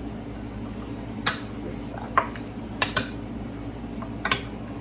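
Hands rubbing seasoning into raw beef chunks in a glass baking dish, with four sharp clinks as the meat and hands knock against the glass, over a steady low hum.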